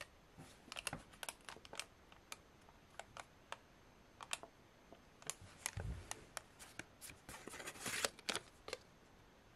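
Faint, scattered taps, clicks and rustles of a glitter-paper card and a small wooden-framed red filter being handled and moved on a wooden tabletop, with one soft low thump about six seconds in.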